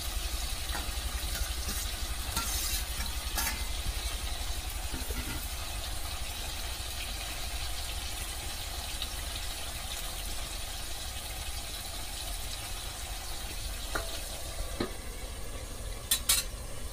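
Chicken curry frying in a kadai over a wood fire, a steady sizzling hiss as chopped tomatoes are tipped in and stirred. A sharp double click comes near the end.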